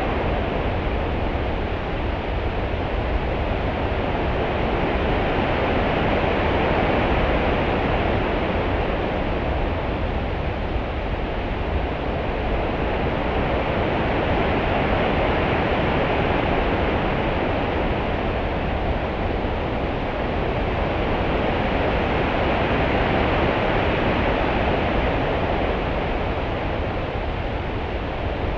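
Open-sea swell and ripples: a steady wash of water over a constant low rumble, with the hiss rising and falling slowly about every eight to nine seconds as the swell comes and goes. There are no breaking waves.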